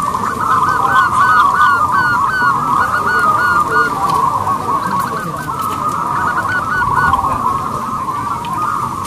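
Zebra doves cooing: a dense chorus of rapid staccato cooing notes, with quick runs of short hooked notes standing out in the first few seconds and again around five and seven seconds.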